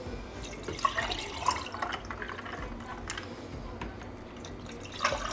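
Lemon water being poured from a plastic pitcher into glass mugs over ice: a steady splashing pour with a few brief clinks.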